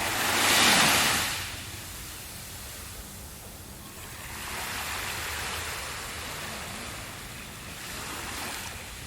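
Ocean waves breaking on a beach: a loud wash of surf about a second in, then softer swells of surf rising and falling.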